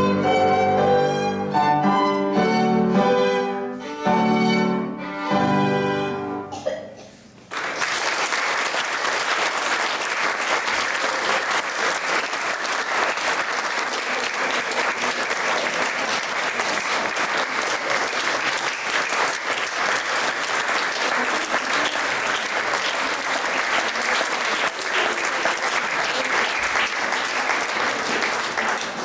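Violin with piano accompaniment playing the last notes of a piece, ending about six seconds in. After a short pause an audience starts applauding and keeps up steady applause.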